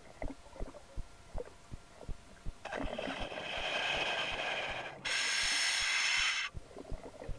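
Scuba diver breathing through a full-face mask regulator underwater: a long hiss of breath that swells and fades, then a shorter, steadier one that cuts off suddenly. Faint scattered clicks run underneath.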